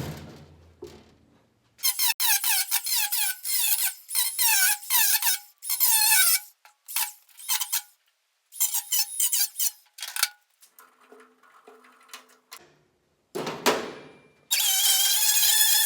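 Sheet metal squealing under a cutting tool in quick, repeated short strokes, then a loud steady whine near the end, as the harness-boot hole is cut into the Jeep's cab.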